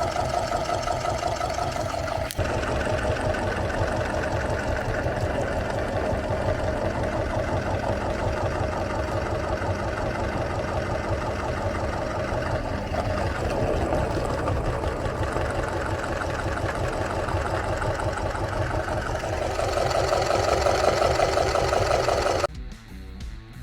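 Electric meat grinder motor running steadily while bananas are pushed through the auger. It gets louder about 20 seconds in and stops abruptly shortly before the end.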